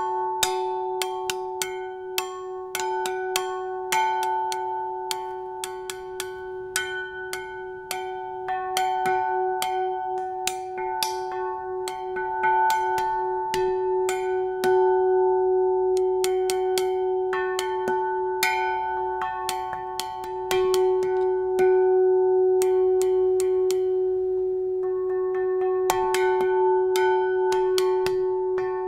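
Small church bell struck over and over by its clapper, worked by hand on a cord, in a quick, uneven improvised rhythm. The bell's steady ringing tone carries between the strokes, and the strikes thin out twice for a moment.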